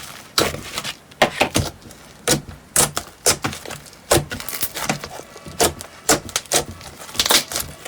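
Slime being squeezed and poked by hand close to the microphone, giving an irregular run of sharp clicks and crackles, several a second.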